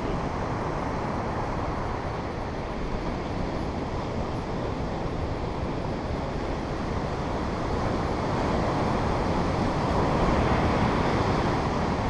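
Wind buffeting the camera's microphone over the steady rush of breaking ocean surf, growing a little louder near the end.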